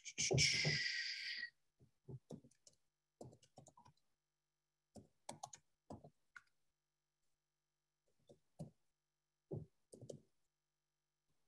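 Computer keyboard typing: short bursts of keystrokes with pauses between them. A loud rushing noise about a second and a half long comes first.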